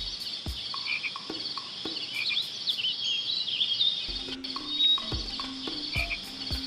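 Outdoor animal ambience: many small birds chirping and twittering in quick, repeated calls, with short low knocks or croaks throughout and a steady low hum joining about four seconds in.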